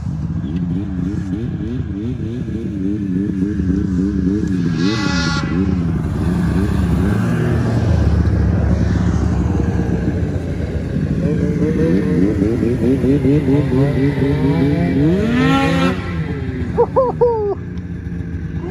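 Snowmobile engine running at speed, its pitch rising and falling with the throttle. Two brief, higher-pitched bursts, about five seconds in and near the end, stand out over it.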